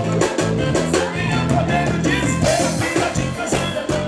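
Live forró band music with a male lead singer over a stepping bass line and steady drums, easing off near the end.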